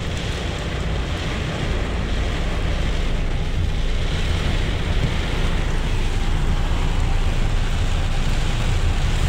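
Steady rush of heavy rain and tyres on a flooded road, heard from inside a moving car, with wind buffeting the microphone.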